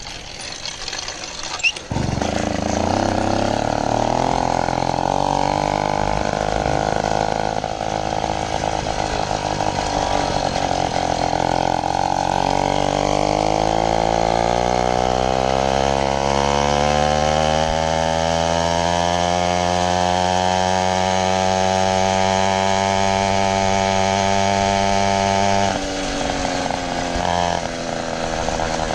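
80cc two-stroke motorized-bicycle engine cutting in sharply about two seconds in, then running under load with its pitch climbing steadily as the bike speeds up, holding high, and dropping suddenly when the throttle eases off near the end.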